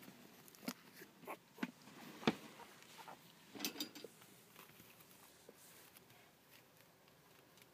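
Faint scattered rustles and soft knocks of fabric and handling through the first four seconds, the sharpest knock a little past two seconds in; after that only quiet room tone.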